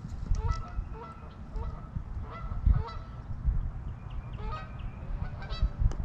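Geese honking: a run of short, repeated honks, about two or three a second, a little denser near the end.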